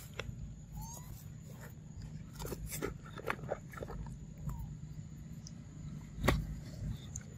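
Monkey sounds: scattered small clicks and knocks with two brief high squeaks, the loudest a single knock about six seconds in, over a steady low hum.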